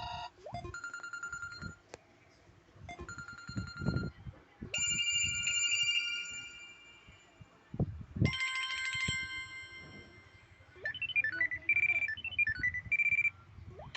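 Samsung Galaxy Tab 2 10.1 ringtones playing one after another: about five different short electronic melodies, each cut off after one to three seconds as the next begins. Soft low thumps fall in the gaps between them.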